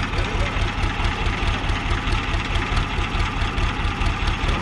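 HMT Yuva 25 hp diesel tractor engine idling steadily with an even, low pulsing beat.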